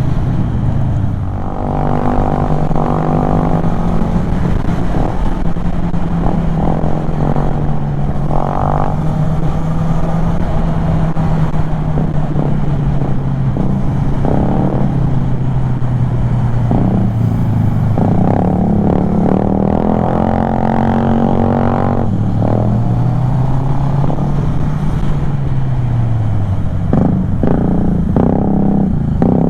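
Kymco Xciting 400 maxi-scooter's single-cylinder engine running at cruising speed on the road, a steady drone that eases lower, swells briefly, and drops again near the end as the throttle changes.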